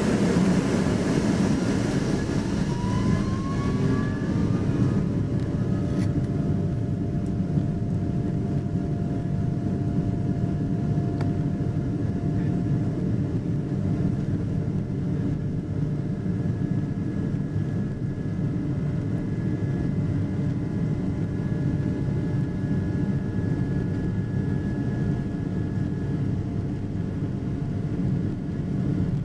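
Boeing 777-200 jet airliner running: a steady low rumble with a thin whine over it, one tone rising a few seconds in and then holding steady.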